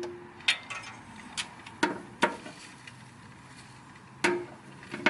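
Hand tools clinking and knocking: a spark plug socket on extensions being worked down onto a spark plug, giving about six sharp separate clinks, some with a brief metallic ring.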